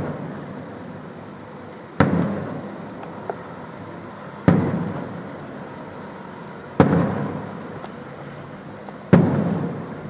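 Aerial firework shells bursting one after another: four loud bangs about every two and a half seconds, each followed by an echo that fades over about a second.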